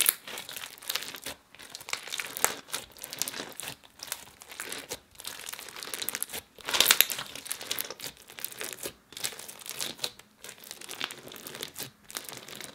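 Clear slime packed with plastic beads being squeezed and pressed by hand: irregular crackling bubble pops as air is squeezed through the stiff slime, loudest about seven seconds in.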